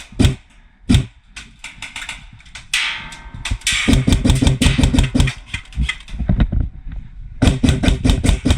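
Airsoft guns firing: two single shots, then rapid strings of shots starting about four seconds in and again near the end.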